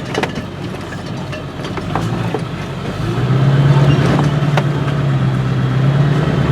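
Service truck's engine running while driving, with a few sharp knocks and rattles; about three seconds in the engine note grows louder and settles into a steady low drone.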